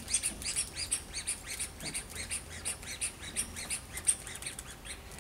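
A small rubber squeeze toy squeezed over and over in the hand, giving a quick run of short high squeaks at about five a second that thin out near the end.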